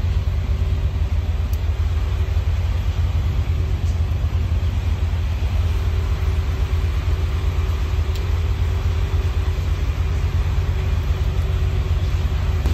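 Steady low rumble of a moving car, with a faint steady hum above it.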